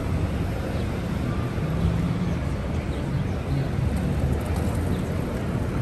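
Steady city street traffic noise: a low rumble of cars and a bus running in the lanes alongside.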